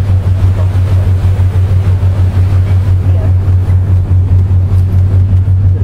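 A boat's engine droning low and steady with an even throb several times a second, under a hiss of wind and water noise.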